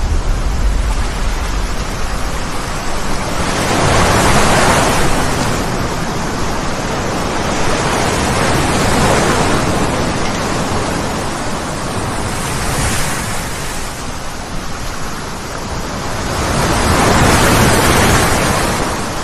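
Steady rushing noise of wind and floodwater, swelling and easing in slow waves about every four to five seconds.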